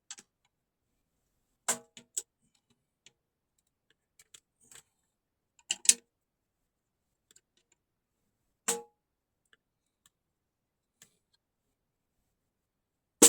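Small 10-inch side snare drum struck with a stick: a few sharp single and double hits spaced seconds apart, one with a short ring. These are test strikes to judge whether its tone fits modern bossa jazz.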